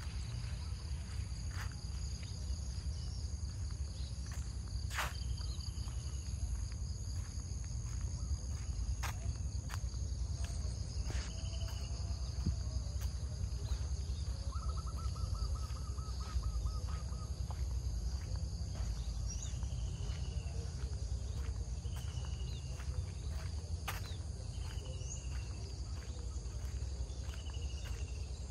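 Rural ambience of insects droning steadily at a high pitch, with birds calling: short falling chirps repeated every couple of seconds in the second half and a brief buzzy trill about halfway through. A steady low rumble runs underneath.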